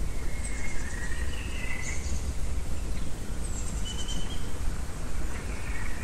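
Songbirds calling: a few short whistled notes and brief high, rattling trills come and go over a constant low rumble.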